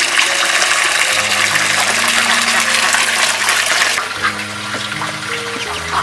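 Water gushing out in a strong stream, as when pouring fresh water for ducks or rinsing out their pen; it stops about four seconds in.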